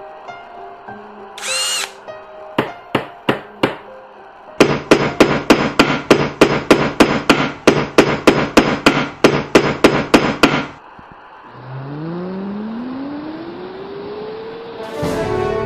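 Tool sound effects over soft music: a few separate knocks, then a long run of loud, evenly spaced hammering strikes, about three or four a second, that stops abruptly. Then a low tone glides up and back down in pitch.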